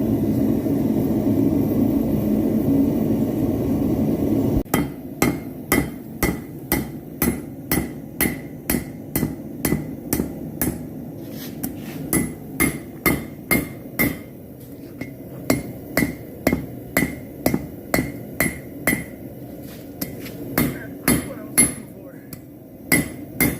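Hand hammer blows on steel over a Harbor Freight anvil, about two a second with short pauses, each strike ringing, as a railroad spike is forged into a knife blade. Before the blows begin, a steady low rushing noise stops abruptly about four and a half seconds in.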